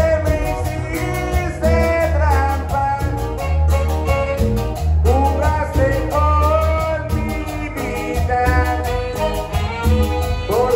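Live Latin dance band playing an upbeat song: a saxophone section, electric guitars, electric bass and drums, with a singer. A steady bass pulse runs under the horn and vocal lines.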